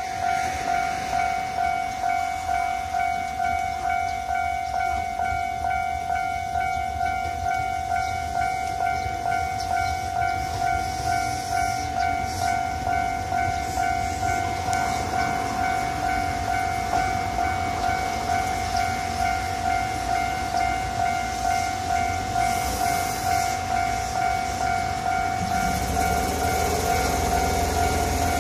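Railway level-crossing warning bell ringing in a steady, rapid ding-ding rhythm. Over it, an Ohmi Railway 100-series electric train runs in, its rumble growing louder near the end as it pulls alongside the platform.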